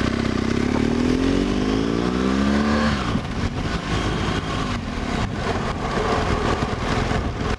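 Motorcycle engine accelerating under the rider, its note climbing steadily for about three seconds and then dropping away, with rushing wind noise for the rest of the ride.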